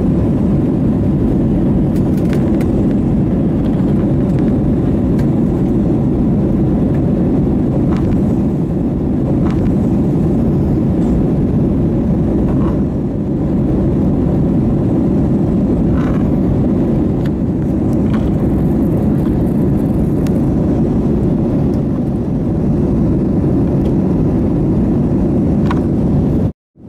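Steady cabin noise of an Airbus A320-family airliner climbing after takeoff: a low roar of the jet engines and rushing air, with a few faint ticks. The sound cuts off abruptly for a moment near the end.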